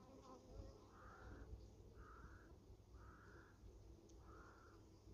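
Four faint bird calls, each about half a second long and about a second apart, over near silence.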